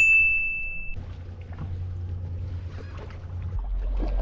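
Steady low rumble of an idling boat engine, with a high, steady tone about a second long at the start.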